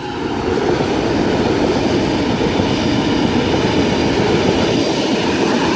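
A Sydney S-set double-deck electric train, two sets coupled, passing through the station: a steady, loud rush of wheels on rail that builds in the first half-second and then holds.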